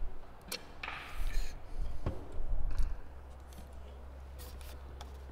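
Sharp knocks and pops of baseball infield practice: a ball hit off a bat, then caught in leather gloves after the throw, over a low rumble of wind on the microphone.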